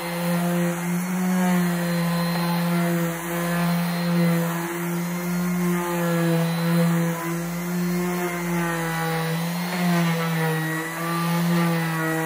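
Worx random orbital sander running on a wooden tabletop: a steady motor hum whose pitch wavers slightly as the sanding pad is pushed across the wood.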